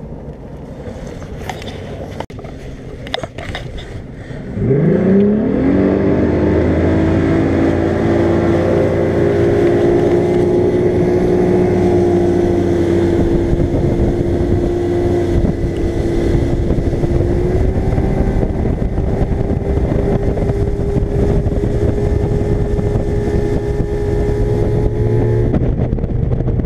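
Bass boat's outboard motor, low at first, throttled up about four and a half seconds in with a quick rise in pitch, then running steady at speed as the boat planes off; the pitch edges up a little twice later on.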